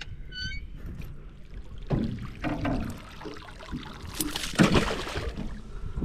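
Lake water splashing and streaming off a dripping clump of weeds, with a small pike caught in it, as it is hauled up over the side of a rowboat; loudest about four to five seconds in. A few knocks and handling noises come before it.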